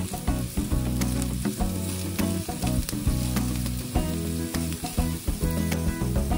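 Chopped onion sizzling in hot oil in a frying pan, with a spatula stirring it around and scraping and tapping against the pan, over background music.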